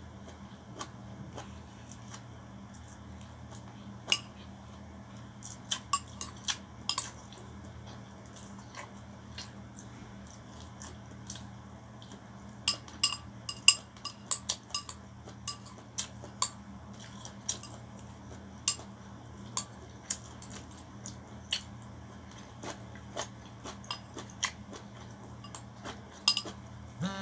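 Eating rice noodles with chopsticks from a ceramic bowl: scattered sharp clicks of the chopsticks against the bowl amid chewing, over a steady low hum.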